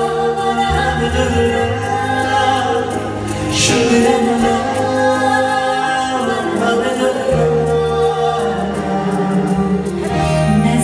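Live song duet: a female and a male singer singing into microphones over a band with tabla and guitars, heard through the hall's PA speakers.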